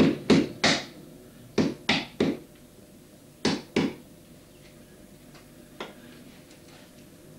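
Sharp wooden knocks in quick groups of three, three and two, each dying away fast, then one lighter knock a couple of seconds later: carving strikes on a block of wood.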